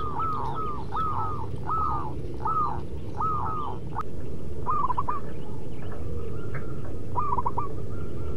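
Zebra doves cooing: a run of short arched coos at about two a second, then, after a change about 4 seconds in, quicker clusters of three or four notes, over a steady low rumble.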